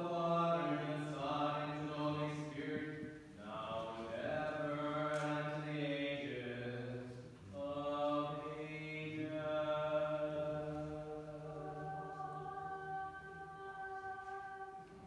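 Orthodox liturgical chant of a litany: voices singing long held notes in three phrases, with breaks about 3.5 and 7.5 seconds in and the last note fading near the end.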